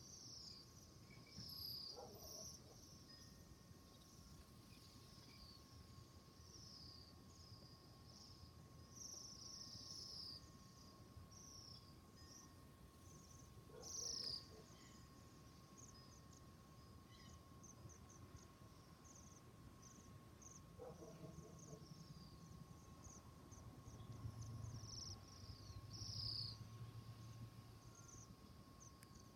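A flock of small birds chirping faintly: many short, high, downward-sliding chirps overlapping at irregular intervals, with a faint steady tone underneath.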